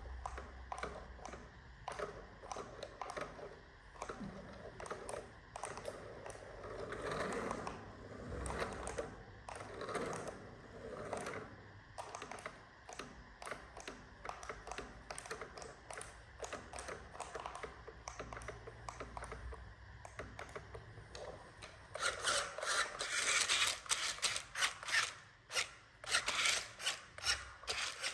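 Dense, irregular clicking and rattling of small hard objects. It gets much louder and busier about three-quarters of the way through.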